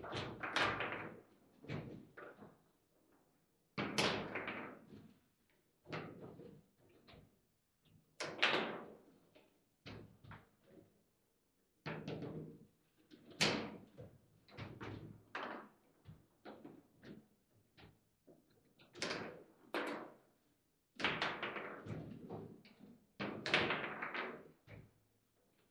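Table football in play: irregular sharp knocks and clacks, singly and in quick clusters, as the ball is struck by the players' figures and the rods are jerked and slammed against the table.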